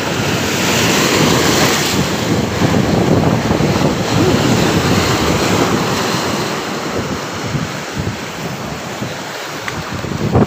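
Rough surf breaking and washing over a rock seawall, with strong wind buffeting the microphone. The surf is loudest in the first few seconds and eases somewhat later.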